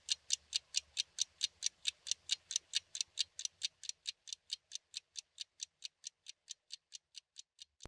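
Clock ticking: a steady run of quick, sharp ticks, about four to five a second, growing steadily fainter.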